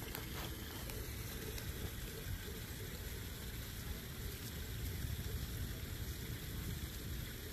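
Koi pond waterfall running: a steady wash of falling water.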